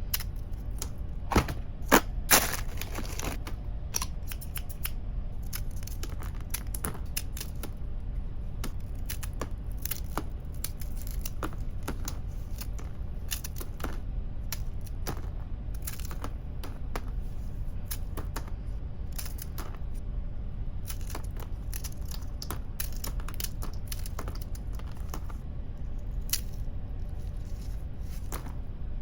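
Scissors snipping through crunchy Koala's March chocolate-filled biscuit snacks: a long run of crisp cracks and clicks, the loudest few in the first couple of seconds, over a steady low hum.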